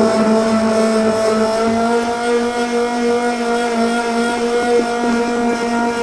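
Handheld SAYESO immersion blender motor running steadily as it mixes a thick conditioner cream in a plastic bucket, its whine shifting slightly in pitch about two seconds in, with a few light clicks. The cream is so thick that the blender is hard to run in it.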